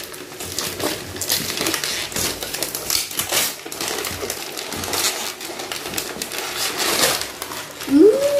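Gift-wrapping paper crinkling and tearing as it is pulled off a cardboard box in quick, scratchy rustles. Near the end a child gives a short vocal sound that rises and falls in pitch.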